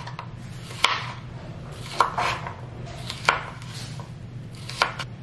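Kitchen knife slicing a cucumber on a plastic cutting board. There are four sharp knocks of the blade on the board about a second apart, with quieter cuts in between.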